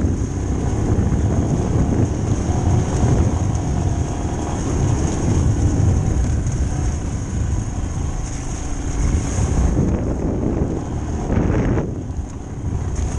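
Motorcycle engine running at low speed with wind buffeting the on-bike camera microphone, a steady rumble that eases briefly near the end.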